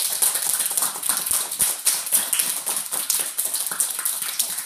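Applause: a small group of children clapping their hands, a fast dense patter of claps.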